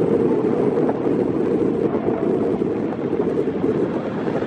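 Steady, loud wind rumble buffeting the microphone while riding along a road at speed.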